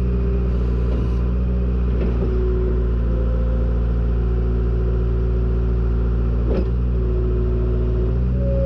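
Deere 270 skid steer's diesel engine running steadily under load, heard from inside the cab, with a couple of short clanks from the machine about two seconds in and near the end.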